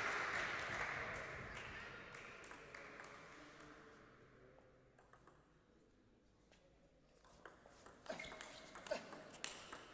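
Applause dying away over the first few seconds, then, about seven seconds in, a table tennis rally: a table tennis ball clicking sharply off paddles and table, a few hits about a second apart.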